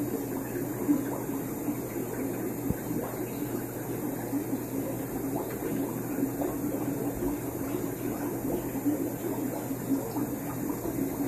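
Steady aquarium filtration noise: water bubbling and fizzing in the tanks over a low, even electrical hum from the equipment.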